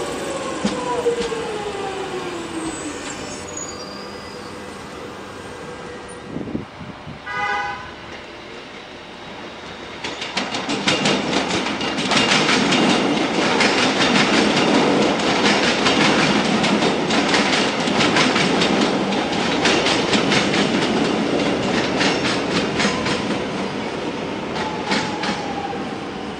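X'Trapolis electric trains passing through a station. The motor whine falls in pitch over the first few seconds, and a short horn toot sounds about seven seconds in. From about ten seconds a train runs past with a loud, fast clatter of wheels over rail joints and points for some fifteen seconds, then eases off near the end.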